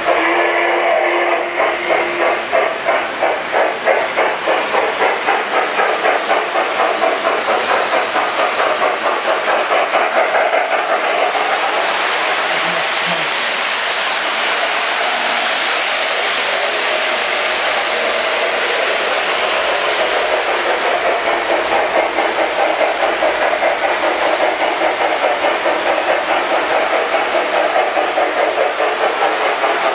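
Lionel O-gauge Norfolk & Western J-class 4-8-4 model steam locomotive running, its sound system giving a fast, regular steam chuff over the clatter of the model train's wheels on the three-rail track.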